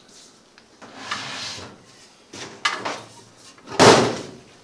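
Handling noises as an old shop dust collection setup is taken apart: a corrugated plastic vacuum hose rustles as it is pulled free, then a few clicks and a louder knock of plastic parts near the end.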